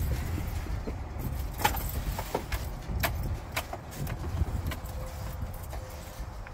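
A string of sharp clicks and knocks as a motorhome's cab door is opened and a man climbs down out of the cab, over a low rumble.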